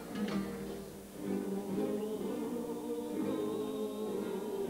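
Men's carnival comparsa choir singing held notes in harmony, accompanied by guitars, with a few strummed guitar strokes at the very start.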